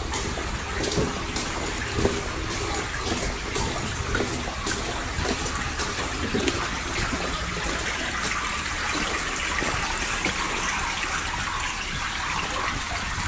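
Steady rush of running water in the drainage channels and culvert pipes of a stone railway underpass, with a few footsteps on the wet concrete path in the first seconds.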